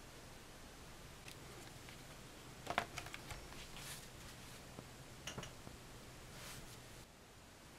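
Faint handling of a cardboard LP record sleeve on a wooden table: a few soft knocks and rustles as it is moved and laid flat, the loudest about three seconds in.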